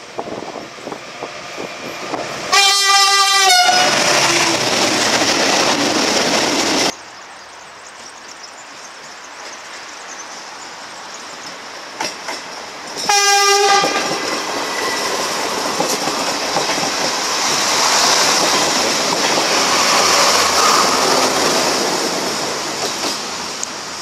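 Two train horn blasts, each a single steady note about a second long, sounded by drivers as a greeting. Each is followed by the noise of the train running past, wheels clicking over the rail joints. The first passing noise cuts off suddenly.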